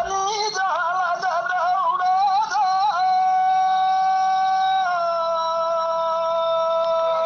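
A woman singing a Bagheli chharha (birha) folk song in a high voice: wavering, ornamented phrases for about three seconds, then one long held note that steps down slightly about five seconds in.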